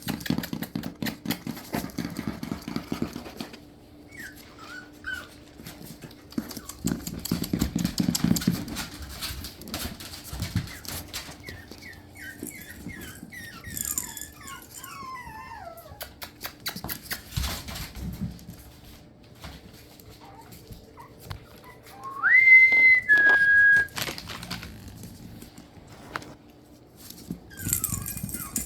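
Yorkshire terrier puppies whimpering, with runs of short high cries falling in pitch and one louder drawn-out whine about two-thirds of the way in. Many small clicks and scuffs sound throughout.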